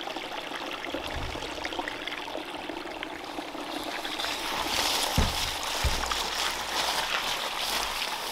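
Steady rush of a small stream trickling over the wet mountainside. From about four seconds in the hiss grows brighter and a little louder, with brush swishing, and a couple of low thumps come about five and six seconds in.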